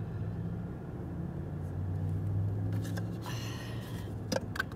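A can and a plastic cup handled inside a car: a short rushing hiss about three seconds in, then two light clicks near the end, over a steady low hum.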